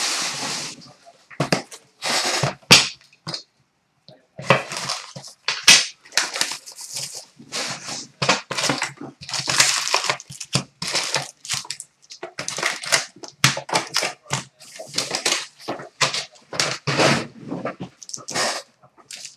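Hockey card pack wrappers being torn open and crinkled, and cards handled, as many short, sharp rustles with brief pauses between them.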